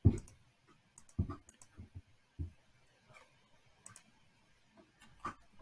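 A computer mouse clicked a few times at irregular intervals, with a soft low knock right at the start as the loudest sound.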